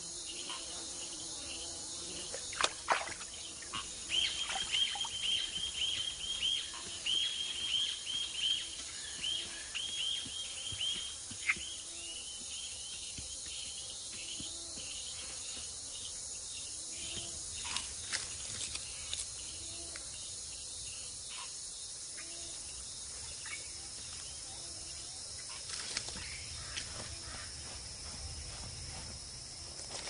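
Tropical forest ambience: a steady high insect drone, with a run of quick, repeated chirping calls from about four to eleven seconds in and a few faint scattered clicks.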